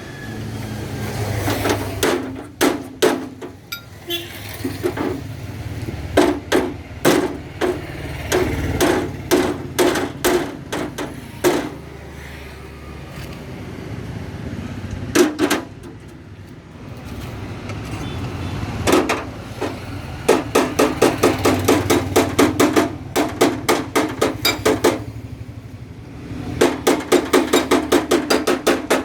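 Hammer blows on the sheet-metal mudguard of a John Deere 5050 D tractor as it is beaten out: scattered single strikes at first, then fast even runs of about four blows a second in the second half, over a low steady hum.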